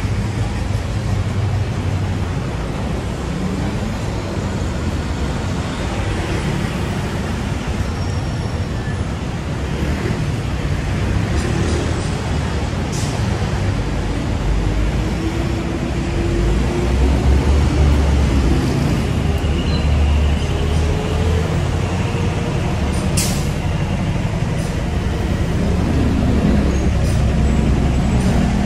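Steady city street traffic: engines of passing vehicles, with a deep engine rumble that swells a little past halfway and a few brief sharp clicks.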